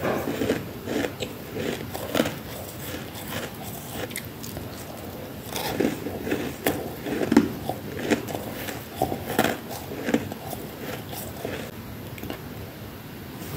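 Freezer frost bitten and chewed close to the microphone: a quick run of crisp crunches that is busiest in the middle and thins out near the end.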